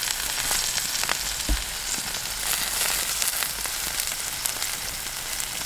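Chicken pieces sizzling on a wood-fired grill, a steady hiss with scattered sharp pops and crackles, and a single low thump about a second and a half in.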